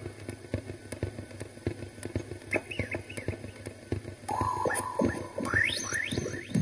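Experimental electronic sound piece: a scatter of irregular clicks and crackles, joined about four seconds in by a held tone and then several quick rising whistle-like glides.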